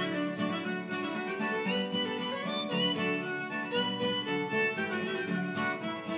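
Harmonica playing the folk-song melody over acoustic guitar accompaniment.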